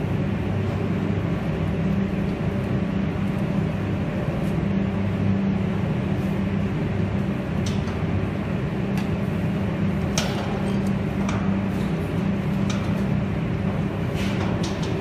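Steady low industrial machinery hum, with a few sharp clicks and knocks in the second half of parts being handled on a large vibrating sieve.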